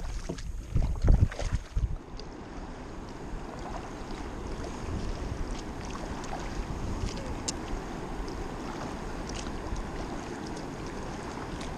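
Kayak paddling on open water. For about the first two seconds, wind buffets the microphone over the paddle splashes. Then comes a steady rush of choppy river water around the hull, with a few faint drips and ticks from the paddle.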